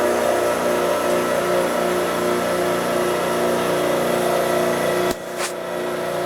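Ransome 10-P welding positioner's powered tilt drive running steadily as it tilts the table. It cuts out about five seconds in and starts again a moment later.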